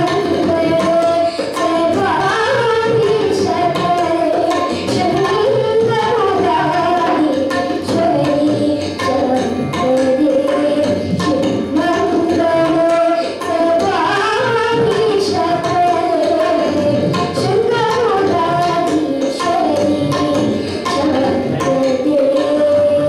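A young boy singing a devotional song in Carnatic style, the melody moving in long gliding phrases, accompanied by tabla strokes.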